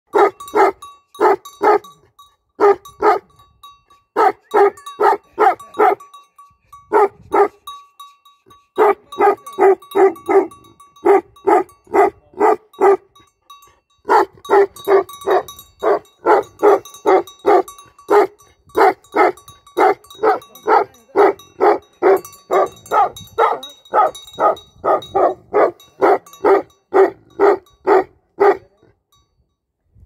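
Large chained guard dog barking in repeated runs of quick barks, about two to three a second, with short breaks between runs. The barking stops shortly before the end.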